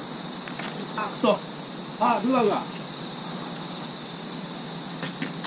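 Crickets chirping steadily in high, continuous trills. About a second in and again about two seconds in come two brief, louder pitched sounds, the first falling in pitch, the second a short run of wavering calls.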